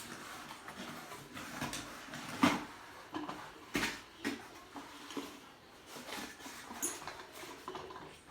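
Scattered knocks, clicks and rustles of a blender's packaging and plastic parts being handled, the loudest knock about two and a half seconds in and another just before four seconds.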